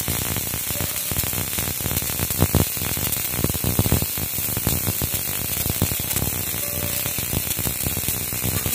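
Robotic MIG welding torch arc crackling and buzzing steadily as the robot arm lays a weld bead.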